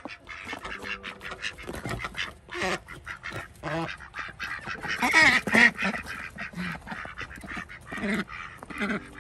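Several mallard ducks quacking repeatedly in short calls, loudest a little past halfway.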